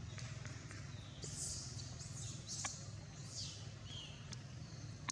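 Outdoor ambience: a steady low rumble with short, faint high-pitched chirps every second or so and a few light clicks.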